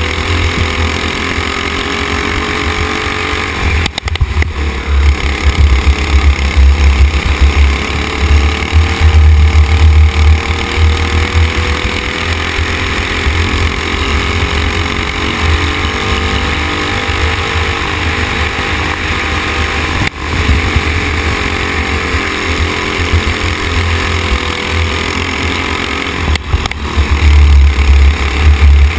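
Racing kart engine heard from onboard at speed, its pitch rising and falling as the driver accelerates and lifts through corners, with sharp brief drops about 4 seconds and 20 seconds in. Heavy low rumble of wind buffeting on the microphone runs under it.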